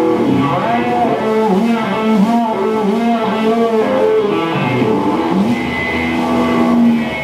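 Loud fuzz-distorted electric guitar, a Stratocaster played live, with a lead line of bent, wavering notes that swoop up and down in pitch.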